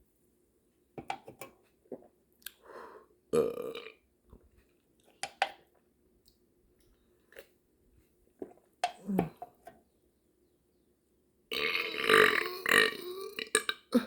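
Loud open-mouth eating: wet smacking and chewing noises in short separate spells, with throaty burp-like gulps. A longer, louder spell of chewing comes near the end.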